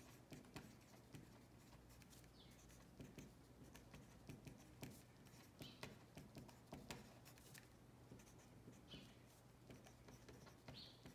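Faint writing on paper: scattered light scratches and small taps of a pen, over a low steady room hum.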